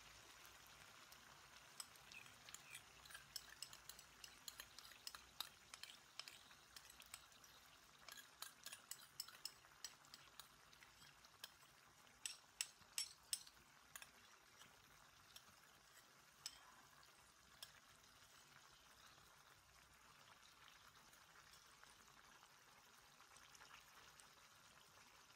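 Pork and carrots frying in a wok, sizzling faintly as teriyaki sauce and liquid are poured over them. Scattered sharp pops and crackles come thickest in the first half, loudest at about twelve to thirteen seconds in, then thin out.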